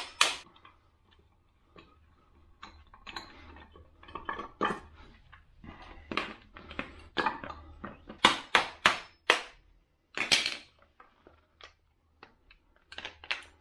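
Hand tools knocking and clinking against a Toyota Corolla's removed shift-lever assembly while its pin is worked out. The clicks are scattered at first, with a run of louder knocks past the middle.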